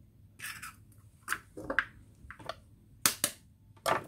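Hen's eggs being cracked open by hand: a series of short, sharp eggshell cracks, the loudest two close together about three seconds in.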